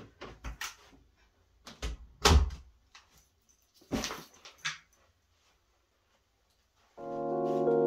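Handling noises from a person moving about at a desk: a few knocks and fabric rustles, the loudest about two seconds in and another about four seconds in, as a canvas tote bag is set down on an office chair. Soft piano music starts near the end.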